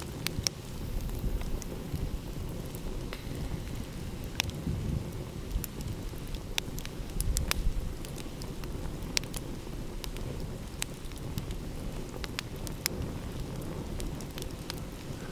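Wood fire crackling, with frequent sharp irregular pops and snaps over a low steady rumble.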